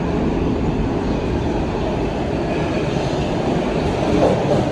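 Toronto subway train running along a station platform: a steady, loud noise of wheels on rail and traction motors.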